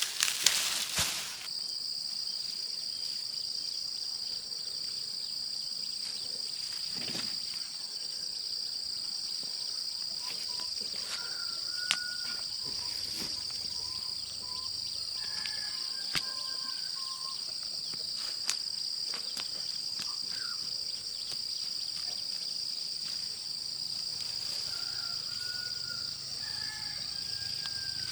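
Steady high-pitched insect chorus, with short bird calls here and there. A brief noisy burst comes right at the start, and a few sharp clicks come later.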